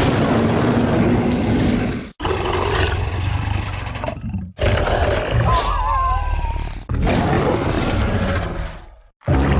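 Monster roar sound effects played one after another: four separate loud, rumbling roars cut apart by brief silences, the third with a high warbling shriek in its middle.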